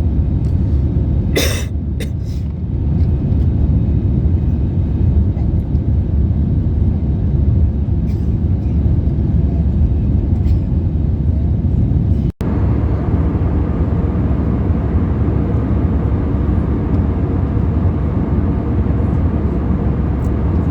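Steady roar of an Airbus A320-200's cabin in cruise flight: airflow and engine noise, heaviest in the low range. A brief sharp clatter sounds about a second and a half in, and the sound drops out for an instant about twelve seconds in.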